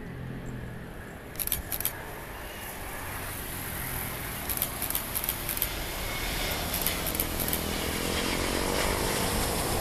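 Airbus A350-941's Rolls-Royce Trent XWB jet engines on final approach, a roar growing steadily louder as the airliner comes in to flare over the runway, with a faint rising whine near the end. Several short bursts of rapid clicking from camera shutters cut in over it.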